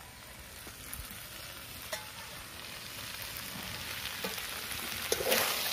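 Chicken and fried cauliflower sizzling in oil in a metal kadai as the florets are tipped in and stirred, with a few metal clinks of the spatula against plate and pan. The sizzle grows louder toward the end.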